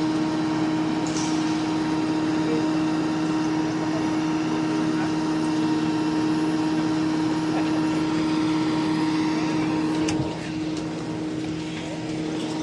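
Concrete boom pump truck's diesel engine running at a steady speed, a constant hum that drops in level about ten seconds in.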